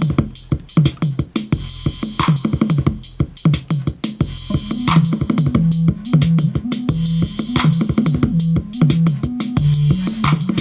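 Drum machine playing a programmed beat with an upbeat bass line added on top. The bass pattern comes in stronger about five seconds in.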